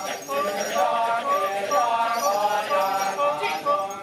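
Kecak chorus: a large group of men chanting together, with voice lines that hold and slide between notes over the chant.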